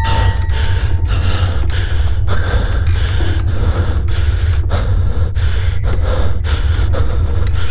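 A man breathing heavily and fast in fear, a quick run of ragged in-and-out gasps, over a steady low drone.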